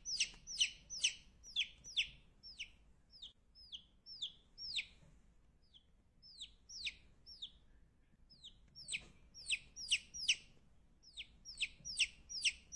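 A chick peeping: a run of short, high peeps that each fall in pitch, about two to three a second. They thin out in the middle and come quickly again near the end.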